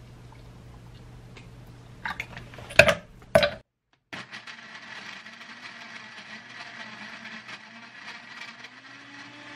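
A few loud knocks about two to three seconds in, then a Philips countertop blender running steadily, blending milk with black sesame powder, its pitch rising a little near the end.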